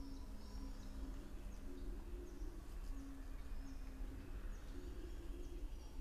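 Wild birdsong: short high chirps from small birds over repeated low, dove-like cooing notes, with a steady low rumble of outdoor background noise.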